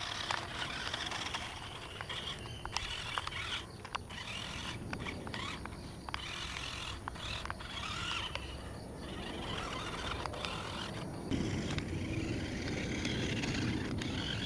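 Toy RC rock crawler's small electric motor and gears running in stop-start spurts as it is driven over muddy ground, with scraping and clicking from the tyres on the dirt.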